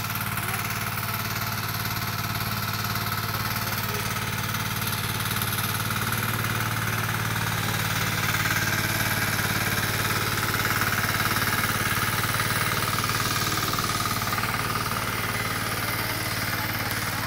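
Hand tractor engine running steadily with a rapid knocking beat as the tractor works the soil, a little louder about halfway through.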